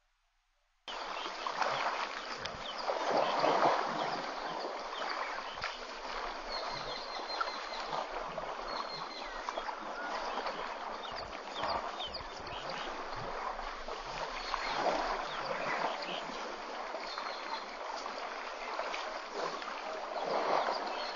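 Water splashing and sloshing as an African elephant wallows in a waterhole, coming in uneven surges and starting abruptly about a second in.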